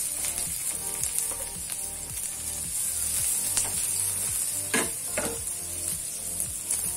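Chopped shallot and garlic sizzling in hot oil in a steel wok, stirred with a spatula that knocks against the pan, with two louder scrapes about five seconds in. Soft background music with a steady beat underneath.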